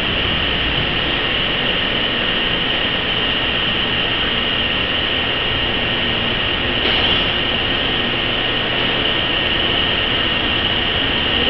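Foam vacuum compressor machine running: a steady mechanical drone with a strong high hiss and a low rumble, a slight surge about seven seconds in.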